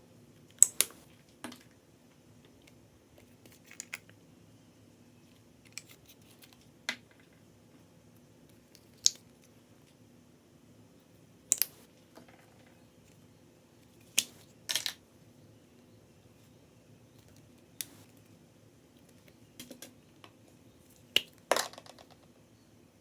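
Slime being handled and pressed, giving scattered sharp clicks and pops at irregular intervals over a faint low hum.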